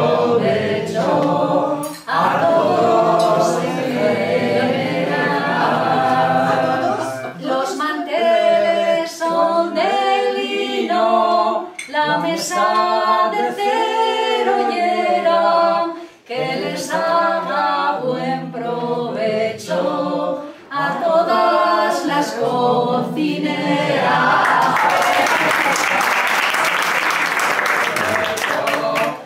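Unaccompanied singing of a Spanish song by the voices of a man and a woman. The last notes give way to a round of applause from the table about five seconds before the end.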